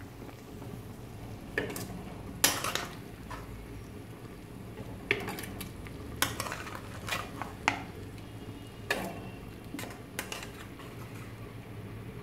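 Spatula scraping and knocking against a metal kadai and the rim of a clay pot as cooked chicken curry pieces are scooped out and dropped in. The knocks are sharp and irregular, about one a second, over a steady low hum.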